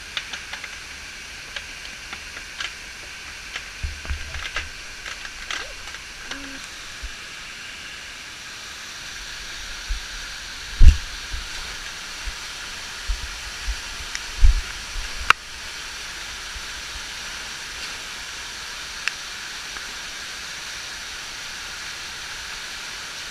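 Steady rush of falling water from the Agura waterfall and its river. A few sharp clicks and low thumps sound over it, the loudest about halfway through.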